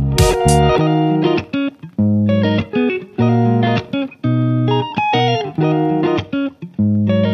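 Background music: a plucked-string tune in short melodic phrases with brief gaps between them.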